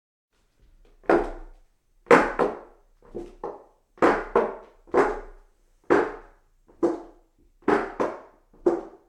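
Footsteps walking up hollow wooden stairs: a hollow wooden thud about once a second, many steps landing as a quick double knock, starting about a second in.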